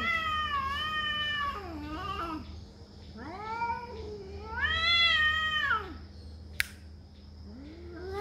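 Domestic cats caterwauling in a territorial standoff: long, wavering yowls, a shorter one after the first, then a longer, louder yowl past the middle. A single sharp click follows, and another yowl begins near the end.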